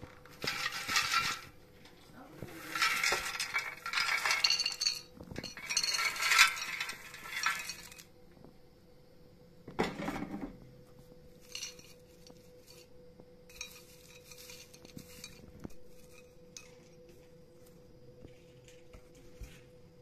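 Dry roasted pumpkin seeds rattling against a ceramic dish and the air fryer basket as they are scooped across with a silicone spatula, in three loud bursts over the first eight seconds. A single dull knock follows about ten seconds in, then a few softer rattles, over a faint steady hum.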